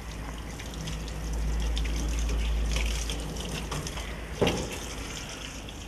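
Water pouring and splashing into a plastic mixing bowl as a fruit paste pack is mixed up, swelling for a couple of seconds and then easing off, with small crackles as it froths. A single sharp knock comes about four and a half seconds in.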